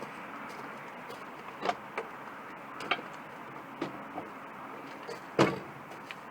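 Steady background noise with a handful of short, sharp knocks and clicks scattered through it, the loudest about five seconds in.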